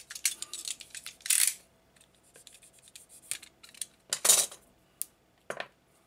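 Insulation tape being pulled off its roll and wrapped round the end of a heavy battery cable. There are small clicks of handling and a few short noisy pulls of tape, the loudest about a second and a half in and again just past four seconds.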